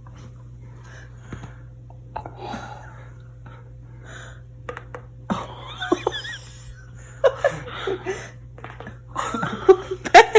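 Several sharp pops of a neck being cracked by hand, the loudest near the end, among breathy gasps and laughter.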